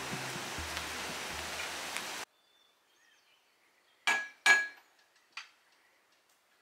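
Background music over a steady rushing noise, cut off abruptly about two seconds in. After a pause come two sharp, ringing metallic clinks about half a second apart, then a fainter third a second later.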